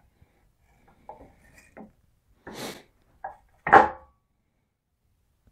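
Aluminium Z-axis plate being handled and fitted against the CNC gantry: a few light knocks, a short scrape, then a loud metallic clunk with a brief ring just before four seconds in.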